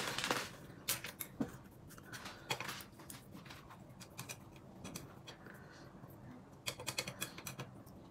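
Faint, scattered light clicks and taps, with a quick run of them near the end.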